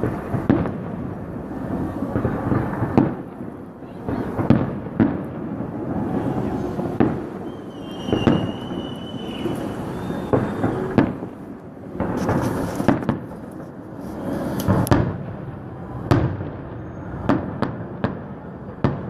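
Fireworks salute: a string of irregular booming bursts with rumbling echoes between them, and a brief whistling tone about eight seconds in.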